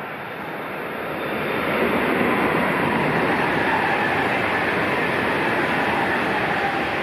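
A fast passenger train passing at high speed: a rushing noise of wheels on rails and air, with a faint whine, swelling over the first two seconds and then holding loud.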